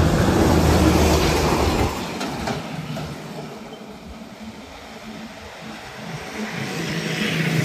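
Isuzu heavy container truck driving past close by, its diesel engine and tyres loud for about two seconds, then fading as it pulls away. Traffic noise builds again near the end as another vehicle approaches.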